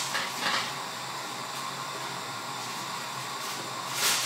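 Steady hiss of pans cooking on the stove, with a short clatter about four seconds in.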